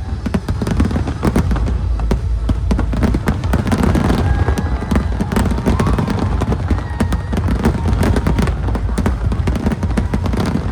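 Aerial fireworks display going off in a dense, continuous barrage of rapid bangs and crackling, with no break in the explosions.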